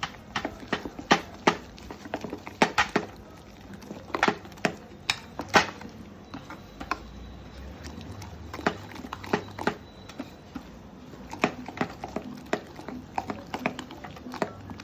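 Thick moong dal and gram-flour batter being stirred in a bowl by hand, with irregular sharp clicks and knocks of the spoon against the bowl.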